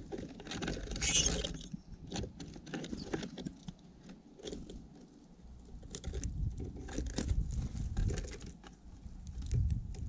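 Birds feeding at a wooden platform feeder right beside the microphone: a string of sharp, irregular taps and clicks as beaks peck and scratch at the seed, with a brief rustling burst about a second in and a low rumble in the second half.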